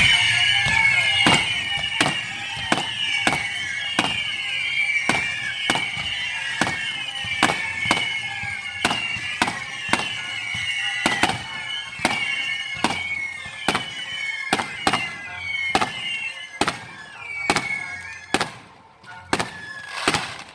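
Fireworks going off as a steady series of sharp bangs, roughly one every three-quarters of a second, thinning out near the end, with music playing underneath.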